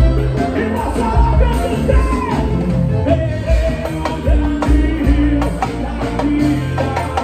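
A live gospel band playing on stage, with electric guitar, drums and singing.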